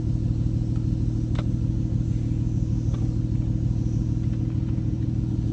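Car engine idling steadily, a deep, even exhaust rumble with no revving.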